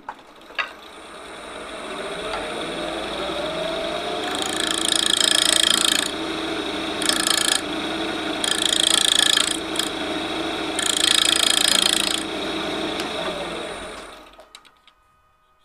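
Wood lathe starting up with a rising whine, then four bursts of a turning tool cutting into the spinning ash workpiece, each lasting one to two seconds. The lathe winds down with a falling whine near the end.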